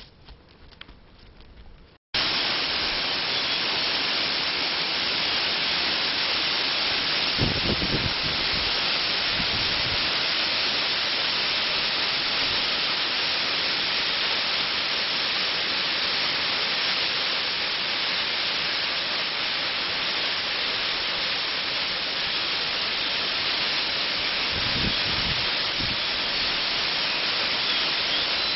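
A waterfall's steady rushing noise, cutting in abruptly about two seconds in after a quiet stretch. Two brief low thumps come through it, one about a quarter of the way in and one near the end.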